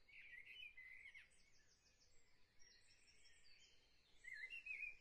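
Near silence, with faint chirping that sounds like distant birds, a little stronger near the end.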